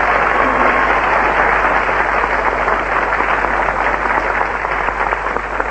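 Studio audience applauding: a steady wash of clapping that thins a little near the end.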